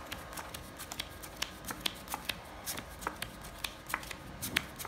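Playing cards being dealt one at a time from a deck onto a felt table: a quick, uneven run of sharp card snaps and flicks, about four to five a second.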